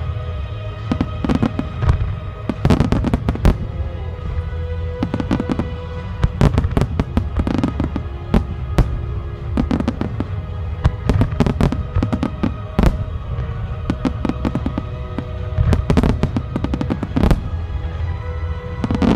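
Finale fireworks display: aerial shells bursting in rapid volleys of sharp bangs and crackles, with music playing steadily underneath.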